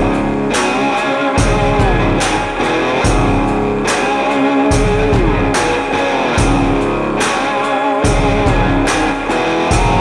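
Rock music with guitar and drums, playing steadily.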